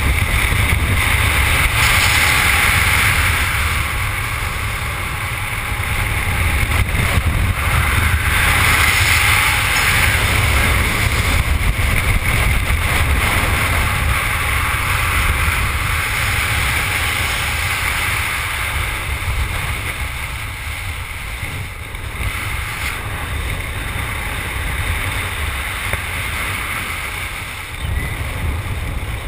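Freefall wind rushing and buffeting over a helmet-mounted camera's microphone, loud and unbroken, easing somewhat in the last third.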